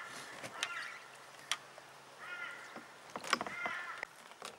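A bird calling a few times, short calls spaced a second or so apart, with a few sharp clicks in between.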